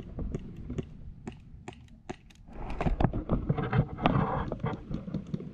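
Irregular sharp clicks and snaps of airsoft gunfire in an exchange of shots, with a stretch of rustling in the middle.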